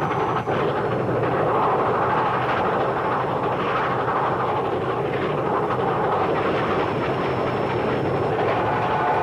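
Train sound effect of a locomotive running along: a steady, dense rolling noise with no clear beat, holding level throughout.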